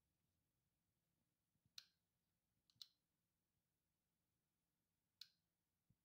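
Three sharp plastic clicks from a slide dimmer switch's on/off button being pressed as the switch is tested, the second about a second after the first and the third a couple of seconds later.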